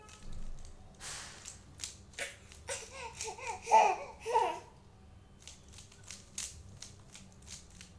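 Rubik's cube layers clicking irregularly as they are turned by hand. From a little under three seconds in to about four and a half seconds, a young child laughs and babbles loudly over it.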